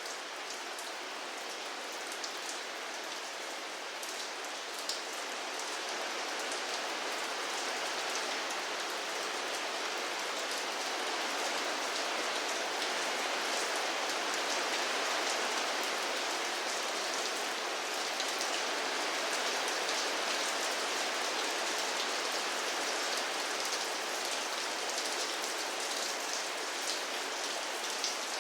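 Steady rainfall: an even hiss of rain with scattered individual drops pattering on a surface, growing slightly heavier after the first few seconds.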